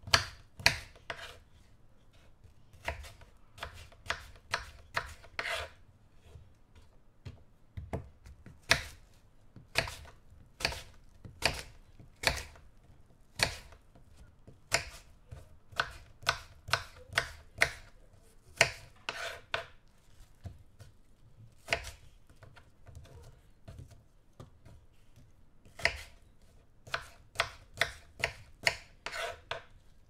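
Kitchen knife cutting an apple into pieces on a wooden cutting board: crisp cuts through the apple flesh, each ending in a sharp knock of the blade on the board, in irregular runs of several quick strokes separated by short pauses.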